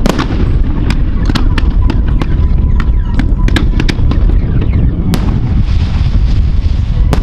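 Fireworks display: comets and mines launching and shells bursting, with a rapid series of sharp cracks and bangs, the strongest about five seconds in, over a continuous low rumble.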